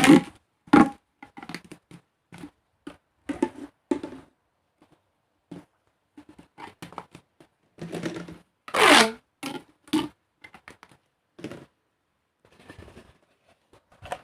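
Plastic pop tubes being stretched and bent, giving irregular crunchy crackles and clicks. There are louder, longer stretching bursts at the start and about nine seconds in.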